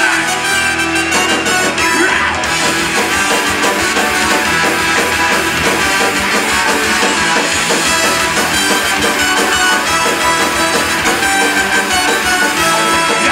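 A live rock band with electric guitar, drum kit and brass (trumpet and trombone) playing loud, dense music.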